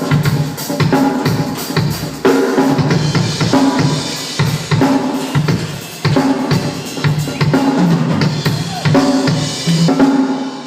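Sonor Accent drum kit played in a sound check: bass drum, snare and toms struck in a steady groove under washing cymbals, then stopping near the end and leaving the drums ringing.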